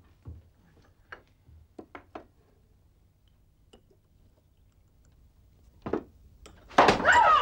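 Teaspoons clinking faintly and irregularly against cups as drinks are stirred. Near the end a loud, sudden human voice cuts in.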